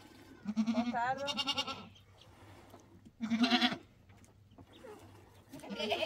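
Goat bleating three times: a long, wavering bleat about half a second in, a shorter one around three seconds in, and another starting near the end.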